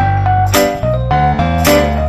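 Background music: a melody of changing notes over a steady beat, with a sharp hit about once a second.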